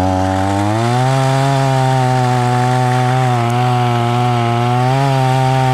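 Two-stroke gas chainsaw running at high throttle, its pitch climbing just under a second in and then holding steady with slight dips.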